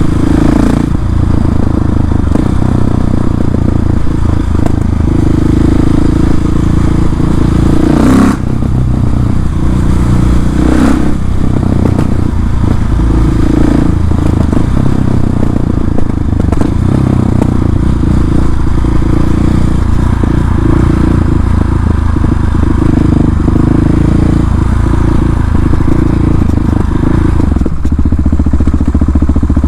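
KTM 690 SMC-R single-cylinder engine running loud through an Arrow exhaust with the dB-killer removed, its note rising and falling as the revs change while riding. A few sharp cracks stand out, about one, eight and eleven seconds in, typical of the pops and crackles of an open exhaust.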